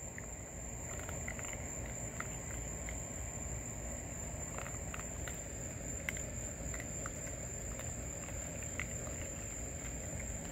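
Crickets chirring steadily in a night-time chorus, a constant high-pitched trill, with scattered faint small clicks on top.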